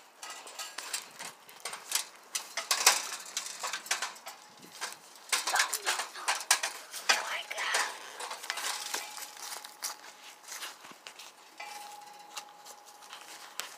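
Irregular clicks, scrapes and crunches of someone moving about with a phone in hand, the footsteps and handling noise close to the microphone. A faint steady high tone comes in about two-thirds of the way through.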